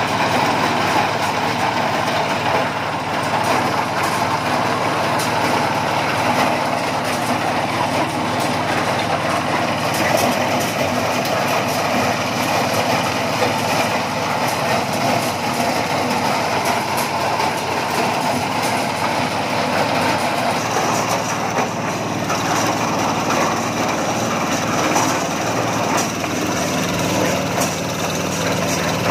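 Corn husker-sheller running under load, powered by a Kubota 8.5 HP single-cylinder diesel engine: a steady engine drone mixed with the dense rattle of husked cobs being threshed and kernels striking the machine.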